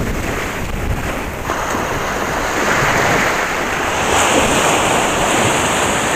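Small shore-break waves breaking and washing up the sand, with wind buffeting the microphone.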